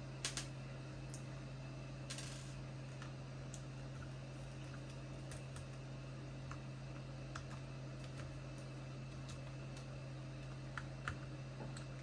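Faint scattered small clicks and taps from the four top screws being undone in a plastic Bluetooth speaker housing, over a steady low hum.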